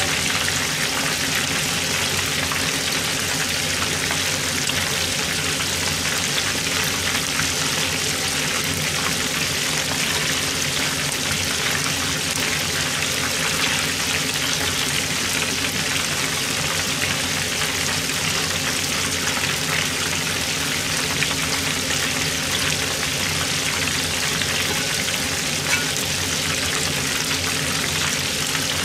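Breaded food deep-frying in hot oil: a steady, dense sizzle and crackle, with a steady low hum underneath.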